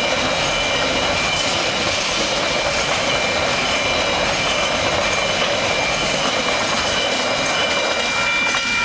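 A train rolling steadily past at a level crossing: a continuous rumble of wheels on rail with a thin, steady high-pitched tone over it.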